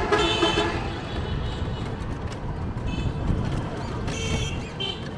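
Busy street traffic with a steady low rumble of engines and road noise. A vehicle horn tone fades out in the first second, and a few short high-pitched beeps or rings sound around three and four seconds in.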